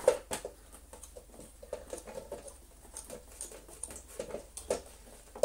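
Faint small clicks and scratches of a screwdriver working a screw out of a Miele C3 canister vacuum's plastic housing, with a sharper click or two at the start.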